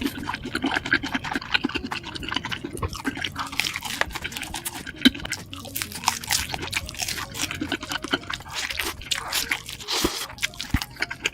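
Crunching and wet chewing of a fried chicken nugget dipped in cheese sauce, with many quick, irregular crunches throughout.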